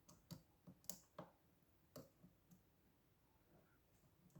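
Faint, scattered clicks of lock-picking tools working inside a lock, most of them in the first two and a half seconds.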